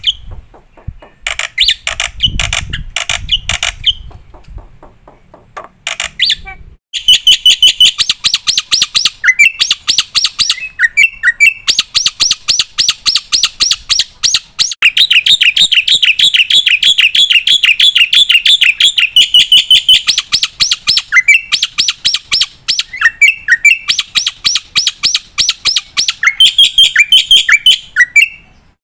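Black-winged myna (jalak putih) singing: scattered calls at first, then from about seven seconds in a loud, dense run of rapid harsh chattering notes with fast trills and short rising whistles.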